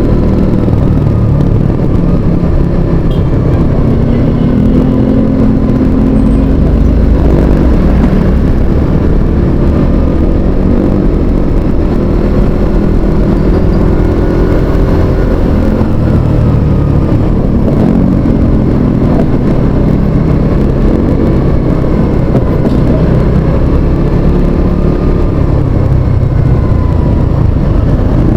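Motorcycle engine running while riding, its pitch rising and falling several times as the throttle and speed change, over a steady low rumble.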